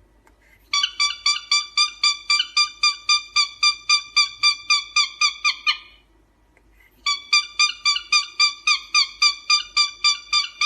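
A small animal giving a rapid series of high, squeaky calls, about four or five a second, in two long runs with a pause of about a second between them.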